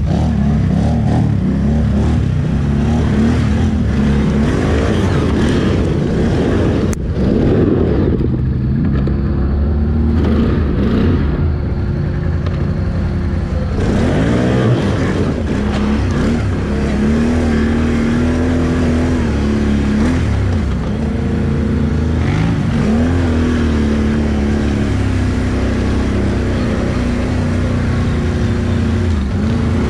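ATV engine running under throttle, its pitch rising and falling again and again as the rider revs on and off.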